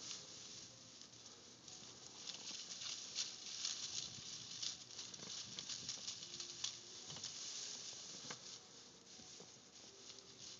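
Faint, irregular rustling and crackling of dry grass and brush, louder through the middle of the stretch.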